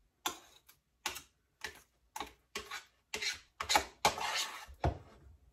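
Metal spoon scraping and tapping against a stainless saucepan while whipped body-butter cream is worked around the pan. It makes a series of irregular clicks and short scrapes, about two a second, with a longer scrape a little after four seconds in.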